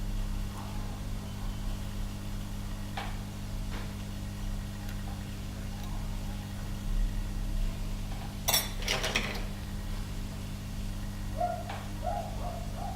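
Steady low electrical hum with a few small clicks and clinks of metal tools, the busiest cluster about eight and a half seconds in; faint short chirps near the end.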